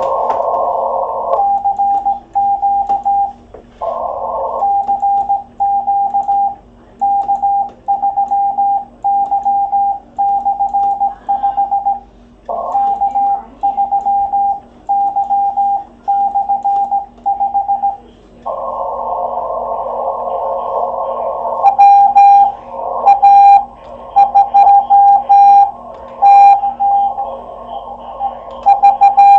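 Morse code on a shortwave transceiver on the 30 m band: a steady tone of about 800 Hz keyed in dots and dashes as the operator sends by hand key, then receiver hiss a little past halfway, then a louder answering station's Morse signal over the hiss near the end.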